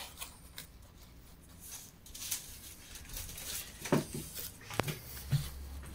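Handling noise from a dry woven basket turned over in the hands: light rustling and crackling of the weave, with a few short knocks and clicks near the end.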